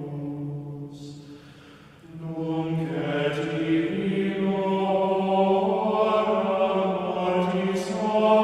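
Slow sung chant with long held notes; it fades away about a second in and a new phrase swells up at about two seconds.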